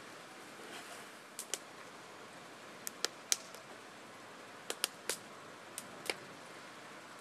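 Smouldering, fire-gutted timber building crackling: about ten sharp pops at irregular intervals over a steady hiss.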